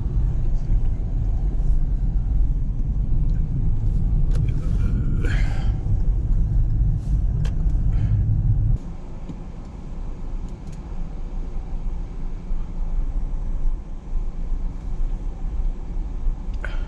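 Car driving, heard from inside the cabin: steady low road and engine rumble with a few brief clicks or squeaks in the first half. The rumble drops suddenly to a quieter level about nine seconds in.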